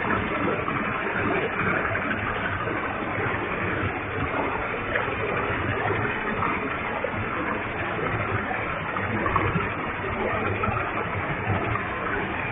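Waterfall with a heavy flow of water, a steady, even rush of falling and splashing water.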